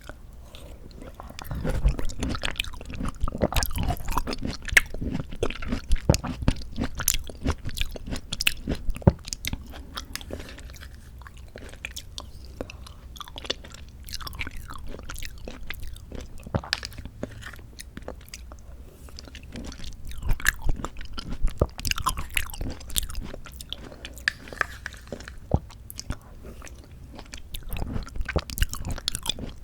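Close-miked eating sounds of a person biting and chewing canned mandarin orange segments from a Sunkist fruit cup: runs of many small clicks with calmer stretches between, busiest in the first ten seconds.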